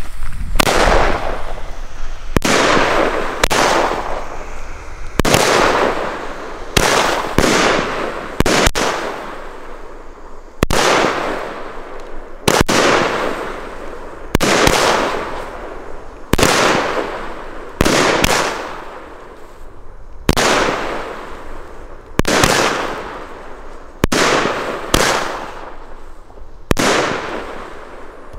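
A Blackboxx Ultra Violet 13-shot consumer firework battery (cake) firing: a sharp bang about every two seconds, sometimes two in quick succession. Each bang is followed by a hissing tail that fades over a second or so.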